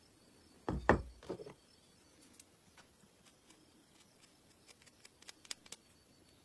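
Two dull knocks about a second in, then a scatter of light clicks and taps, with a quick run of sharper clicks near the end.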